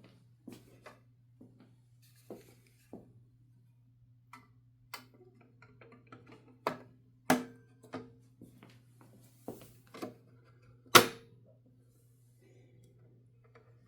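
1969 Adler J5 manual typewriter being worked by hand: irregular mechanical clicks and clacks, with a few sharper strikes in the middle and the loudest about eleven seconds in, some of them followed by a brief metallic ring.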